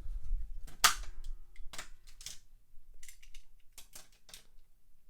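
Sharp clicks and clacks of die-cast toy cars and plastic track being handled, one loud click about a second in followed by a string of lighter clicks.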